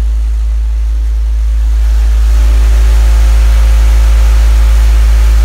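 Car audio subwoofers in a truck playing one long, very loud low bass tone at about 4,200 watts, measuring about 157.5 dB on the SPL meter. A buzzing rattle grows in on top of the tone about two seconds in.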